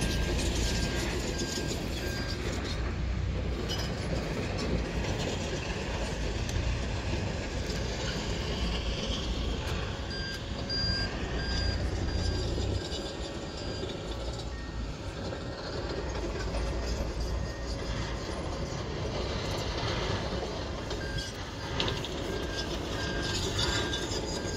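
Distant jet roar of an Airbus A320-232's IAE V2500 turbofans as the airliner climbs out after takeoff: a steady rushing noise with a low rumble that swells and fades.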